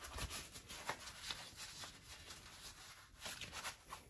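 Quiet room tone with scattered faint light clicks and rustles.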